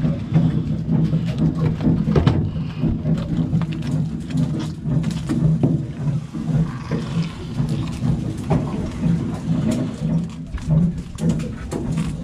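Steady low hum of a boat's engine running, with a few scattered knocks and clicks.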